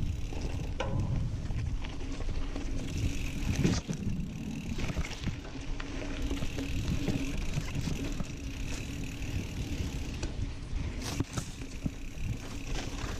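Specialized Camber 29er mountain bike riding over grass and sandy singletrack: a continuous rolling rumble from the tyres, with scattered clicks and rattles from the bike. A sharp knock comes a few seconds in.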